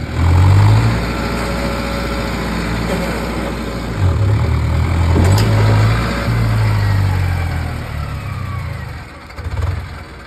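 Tractor's diesel engine running as the tractor rolls slowly forward: a low, steady rumble that swells about four seconds in and dies down near the end.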